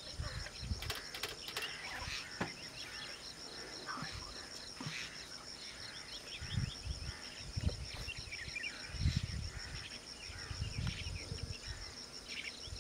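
Forest ambience: a steady, high, pulsing insect chirr with scattered bird chirps over it, and a few low thumps.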